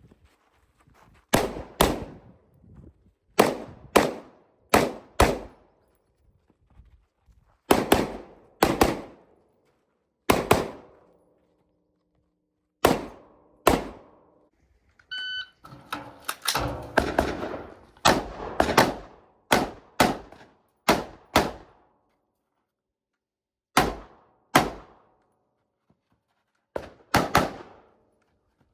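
Semi-automatic rifle fire on an IPSC stage, shot mostly in quick pairs (double taps) with pauses between, and a fast string of shots about two-thirds of the way through. A brief ringing tone sounds just before the fast string.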